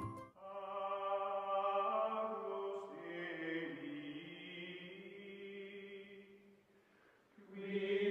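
Outro music: sustained, chant-like choral voices holding long chords. It fades away about six and a half seconds in and starts again about a second later.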